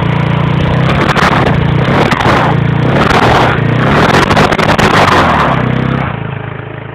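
Moped engine revving hard in repeated surges while its studded rear tire spins in the snow; the revs drop away about six seconds in.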